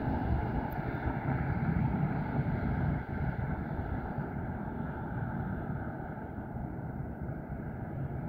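Distant engine drone, steady and easing off slightly after about three seconds, over low wind rumble on the microphone.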